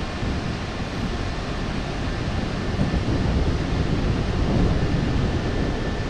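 Steady rushing noise of wind buffeting the microphone, strongest and fluttering in the low end.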